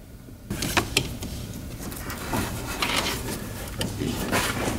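Rubbing, knocking and scattered clicks of a hand working among the rubber vacuum hoses and metal parts at a car's firewall.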